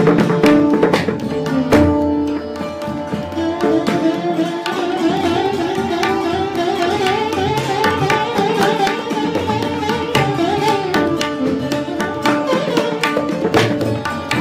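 Hindustani classical instrumental ensemble playing raag Keeravani: mohan veena and santoor over tabla and pakhawaj drumming. A fast, wavering melodic run fills the middle, with drum strokes throughout.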